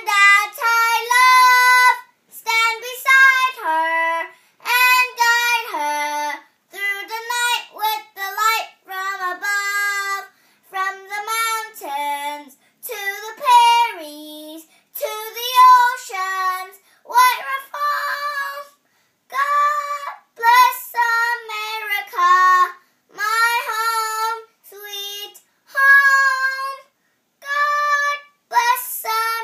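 A young girl singing solo, holding clear, steady notes in short phrases with brief pauses for breath between them.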